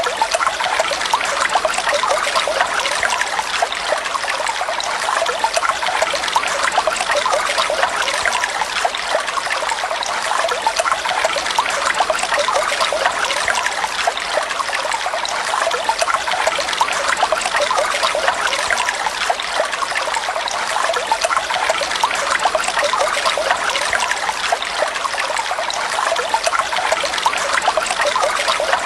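Flowing water trickling and splashing steadily, an even, unbroken rush with no pauses or changes.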